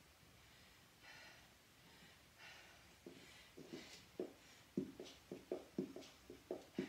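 A person breathing hard between exercises, then from about three seconds in quick rhythmic thumps, about three a second and growing louder, as feet strike the floor in mountain climbers.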